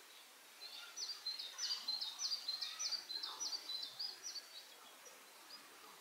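A small songbird singing a quick, repeated phrase of high notes that each sweep downward, about two phrases a second, for around four seconds before it stops.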